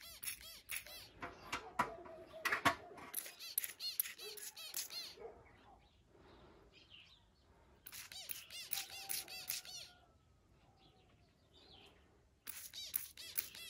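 Small birds chirping in quick runs of high chirps, in three spells with short pauses between.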